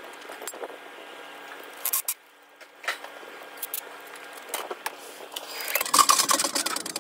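Hands-on work on an electric-car battery pack with a cordless power tool: metal clicks and clinks from bolts and tool handling, a few sharp ones. A louder stretch of mechanical noise follows near the end.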